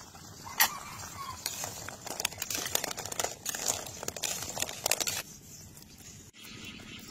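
A long metal spoon stirring boiled eggs in a metal pan of water: a run of irregular clicks, knocks and scrapes as the spoon and eggs hit the pan, stopping about five seconds in.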